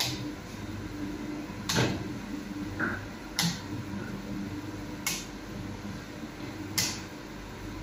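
Sharp clicks repeating at an even pace, about one every 1.7 seconds, over a steady low machine hum.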